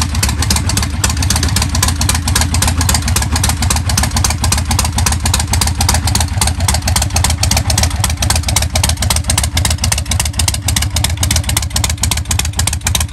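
Yamaha Road Star's air-cooled V-twin engine idling steadily, a fast, even run of low exhaust pulses. The bike is running well after repair work that included reinstalling its carburetor.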